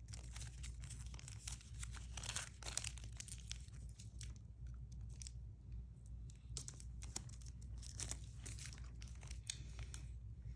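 Plastic candy wrapper crinkling and tearing as a chewy lemon sweet is unwrapped, a run of faint irregular crackles with busier bursts now and then.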